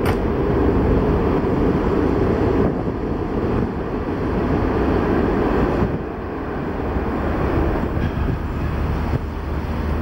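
Wind buffeting the microphone, a rough low rumble that is heaviest in the first half. A steady low hum comes in near the end.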